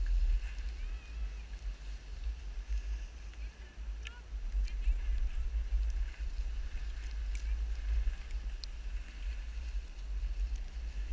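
Wind buffeting the microphone of a camera carried downhill by a moving skier, heard as a steady, uneven low rumble with a few faint clicks.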